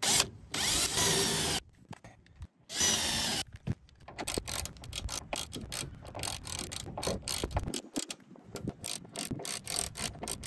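A cordless drill drives a self-tapping screw into the truck bed's sheet-metal wall in two short runs. About three and a half seconds in, a hand ratchet takes over, clicking rapidly and steadily as the screw is snugged down.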